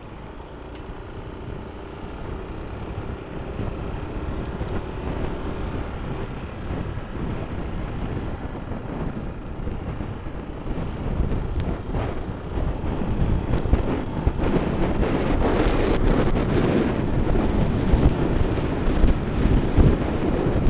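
Wind buffeting the microphone, a rough low rumble that grows louder through the second half.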